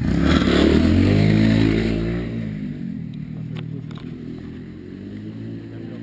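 Motorcycle engine running close by, loudest in the first two seconds as its pitch falls, then settling to a quieter steady run. A few light knocks come in the second half.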